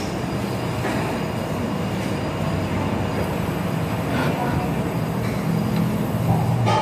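Steady restaurant background noise: a continuous rushing hiss over a low rumble, with faint voices in it.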